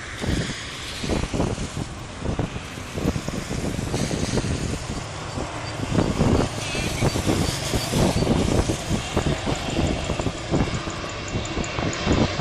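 A jet airliner approaching to land, its engine noise growing steadily louder, with a faint high whine coming in during the second half. Wind gusts buffet the microphone throughout.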